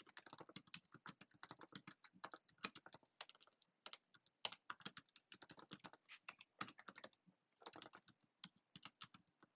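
Faint computer keyboard typing: a quick, irregular run of key clicks broken by a few brief pauses.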